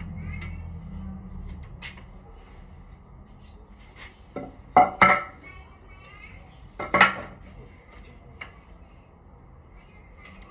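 Hard objects clanking and clinking, metal-like, with scattered single clicks and two louder clusters of knocks about five and seven seconds in. A low rumble fades out over the first couple of seconds.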